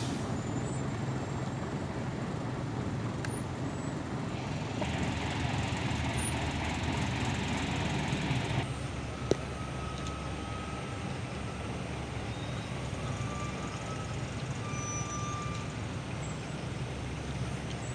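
Truck engines idling in a stopped queue of traffic, a steady low hum. A steady hiss rises over it for about four seconds, about five seconds in, and stops abruptly. A single sharp click follows just after.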